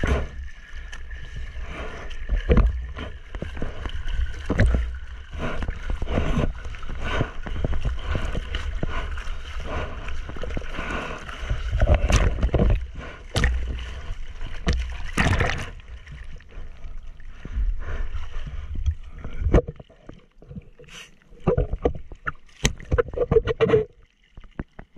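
Seawater rushing and splashing against a surfboard as it moves through breaking waves, close on the microphone, with many sharp splashes. It drops to lighter scattered splashes and drips about twenty seconds in.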